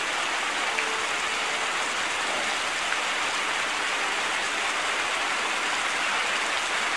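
A steady, even hiss that holds at one level throughout, with no separate drops or knocks.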